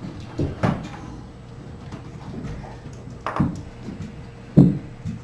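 A few scattered knocks and thumps over quiet room sound, the loudest and deepest about four and a half seconds in.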